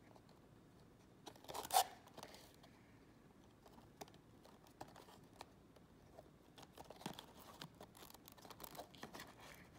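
A small cardboard box being handled and opened by hand. There is a short tearing or scraping sound about two seconds in as the seal sticker comes loose. After that come scattered light clicks and rustles of cardboard, growing busier near the end as the end flap opens and the tray slides out.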